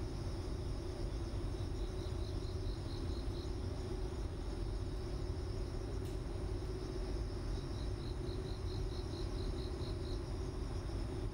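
Insects chirping steadily in the background, with two runs of quick chirps at about five a second, one about two seconds in and one starting near eight seconds, over a steady low hum.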